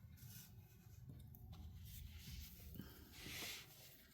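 Faint rustling of hands handling yarn and paper craft materials, with a short, louder rustle about three seconds in.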